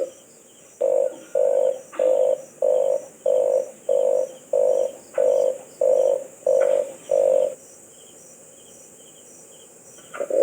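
Red collared dove calling: a series of about eleven short, low coos in an even rhythm, a little under two a second, which stops about three quarters of the way through.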